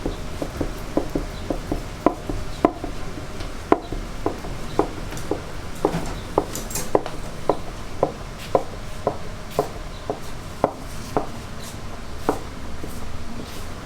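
A knife cutting through youtiao dough and striking the board in a steady rhythm of sharp knocks, about two a second, as the fermented dough is cut into strips.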